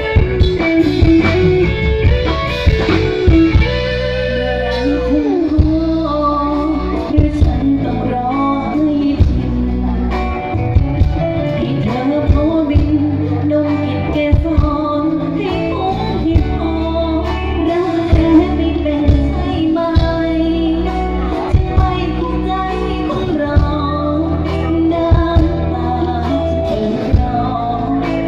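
Live Thai dance band playing loudly through a PA system: singing over electric guitar, bass and drums with a steady beat.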